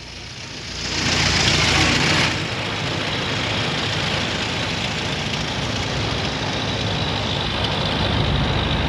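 A car sweeps close past with a brief loud rush of noise, then its engine runs on as a steady low drone.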